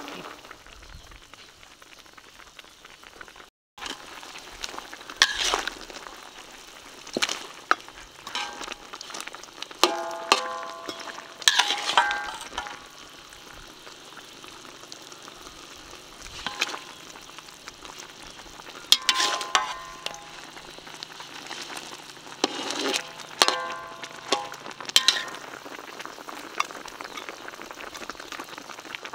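Pork trotters frying in a metal pan with a steady sizzle. Now and then a metal utensil strikes the pan while stirring, and each strike rings briefly.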